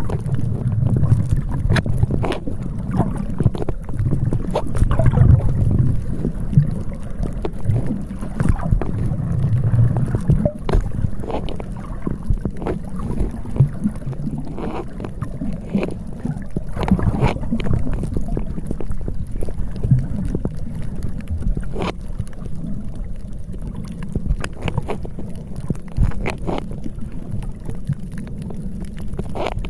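Wind buffeting the microphone in uneven gusts, a heavy low rumble that swells and falls, with scattered short clicks.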